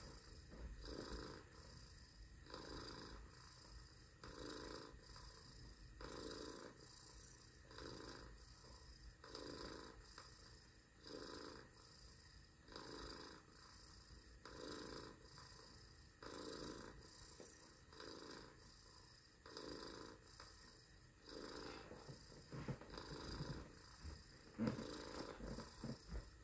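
A person purring in imitation of a cat: quiet, steady purrs on each breath in and out, about one pulse a second, a little stronger near the end.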